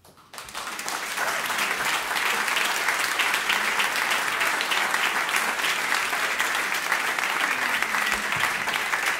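Audience applause breaking out at the end of a live song: the clapping starts just after the music stops, swells within the first second and then holds steady.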